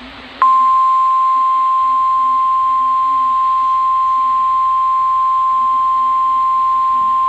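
NOAA Weather Radio 1050 Hz warning alarm tone: after faint hiss, a single loud steady beep starts about half a second in and holds unbroken. It is the alert that a warning message follows, here a severe thunderstorm warning.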